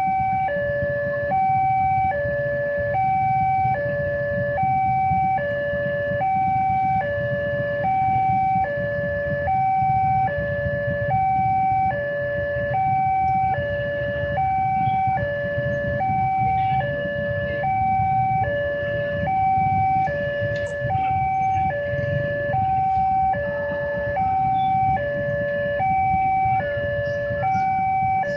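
Railway level-crossing warning alarm sounding from the loudspeaker on the signal post. It is an electronic two-tone signal that alternates steadily between a higher and a lower note, warning that the crossing is closed for an approaching train.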